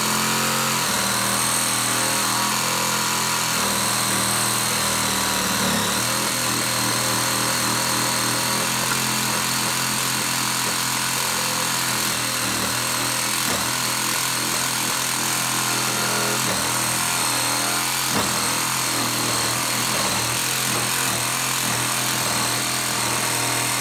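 DeWalt Atomic DCS369 20-volt brushless compact reciprocating saw running at full speed, its blade cutting steadily through a wooden 2x4 in one long continuous cut.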